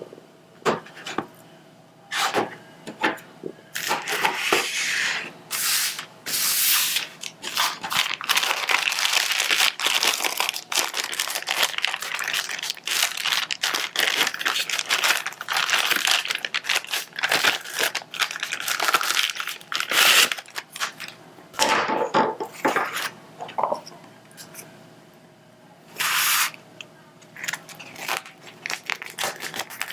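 Plastic packaging and film of a diamond painting kit crinkling and tearing as they are handled: a dense run of crackles, rustles and small clicks from about four seconds in to about twenty, then scattered taps and one short rustle near the end.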